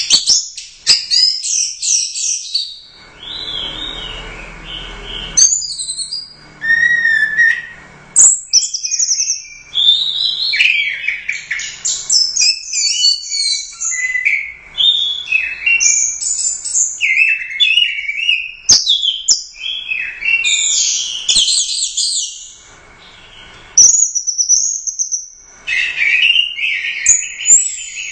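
Orange-headed thrush singing a loud, continuous, varied song of quick whistled and chattering phrases that jump up and down in pitch, with only brief pauses.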